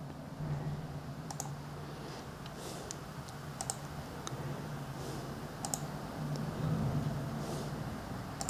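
Scattered computer clicks, several in quick pairs, as line points are placed in drawing software, over a low steady hum.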